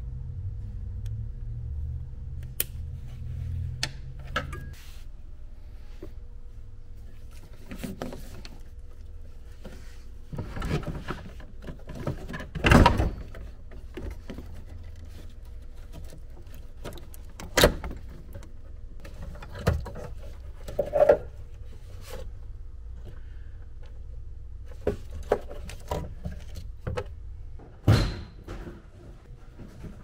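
Scattered clunks, knocks and rattles of tools and dash parts being handled while a Jeep Wrangler TJ's dashboard is taken apart. The loudest is a sharp knock a little under halfway through. A low background hum stops after about four seconds.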